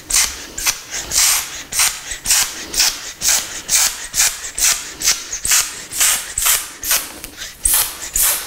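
Hand trigger spray bottle being pumped in a quick, even run of short hissing squirts, between two and three a second, soaking a potted palm's leaves with a homemade antifungal spray.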